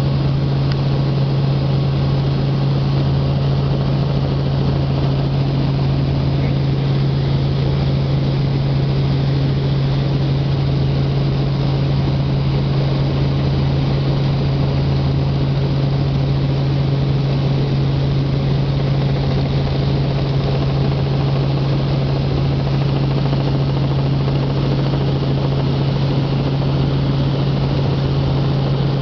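Helicopter engine and rotor drone heard from inside the cabin: a loud, steady low hum with a slow pulsing beneath it, unchanging throughout.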